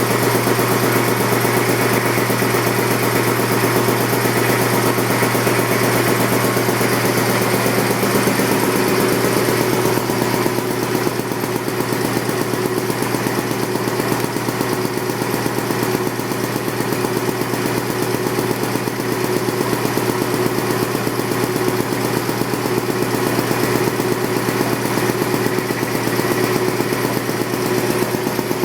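1967 Champion two-cylinder, two-stage air compressor, driven by a 2 horsepower GE electric motor, running steadily as it pumps the tank back up toward its 165 psi cut-out. Its tone shifts slightly about ten seconds in.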